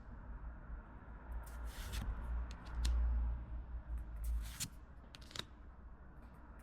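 Pokémon card packs and cards being handled: short scrapes and clicks of cards and wrappers, with low handling bumps loudest about three seconds in.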